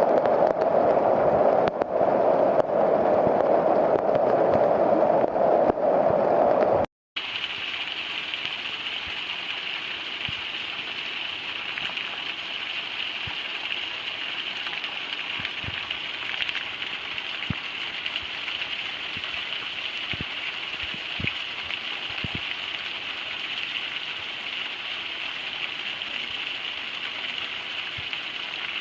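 Rain. For about the first seven seconds a louder, deeper rush of water, then a sudden cut to steady, lighter rain hiss with occasional single drops landing close by.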